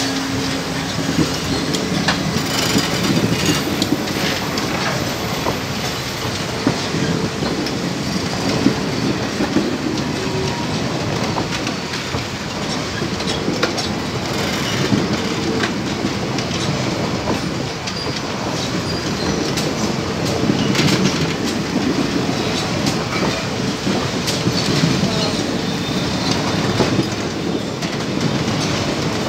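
Indian Railways passenger coaches rolling past at close range, a steady rumble with the wheels clattering over the rails.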